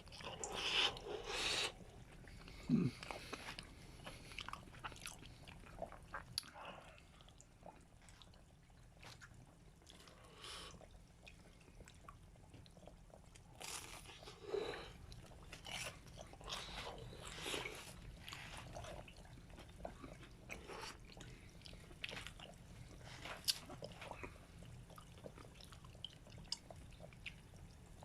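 Close-up chewing and biting of a sauced, deep-fried potato croquette, with scattered small crunches and mouth sounds.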